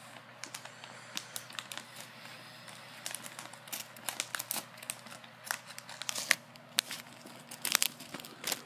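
Crinkling of a plastic snack bag: irregular sharp crackles, sparse at first and busier from about three seconds in, as a hand rummages in the bag for the thin fish snack sticks.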